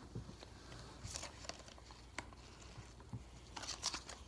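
Faint rustling and light clicks of trading cards being handled, with a short flurry of them near the end.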